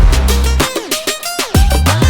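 Upbeat electronic hip-hop backing music with a heavy bass line and a steady drum beat; the bass drops out briefly a little after halfway through.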